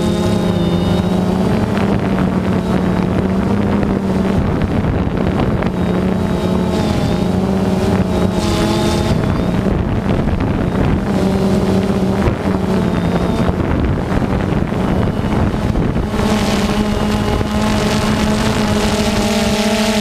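DJI Phantom 2 quadcopter's motors and propellers buzzing steadily in flight, heard from the camera on board. The pitch wavers as the motors adjust and steps up a little about three-quarters of the way through, with wind rushing over the microphone.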